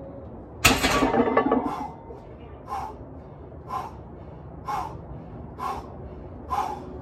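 A heavily loaded trap bar set down about a second in, with a loud clank of plates, then a weightlifter's hard, sharp breaths about once a second while he gets ready for the next rep of a heavy deadlift set.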